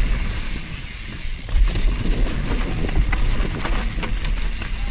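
YT Capra mountain bike descending a dirt forest trail at speed, heard from a camera on the rider: low wind rumble on the microphone and tyre noise on dirt, with scattered rattles and clicks from the bike over the bumps.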